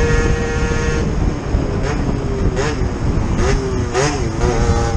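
Motorcycle engine running at a steady note, then its pitch wavers up and down from about a second in, over wind rushing across the microphone.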